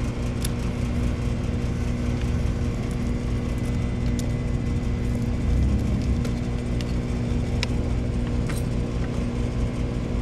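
Air-conditioner outdoor condensing unit running steadily: a compressor hum with several constant tones under the rush of the condenser fan. A few faint light ticks sound over it.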